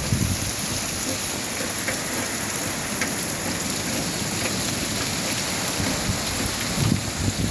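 Steady rain falling and pattering on surfaces, the first rain after about six weeks of dry weather. Brief low rumbles come near the start and again near the end.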